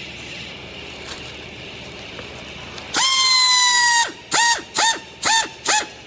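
Pneumatic strapping tool's air motor whining. About three seconds in, it runs for about a second, tensioning the strap, then gives four short blips as the trigger is pulsed. Each blip rises and falls in pitch.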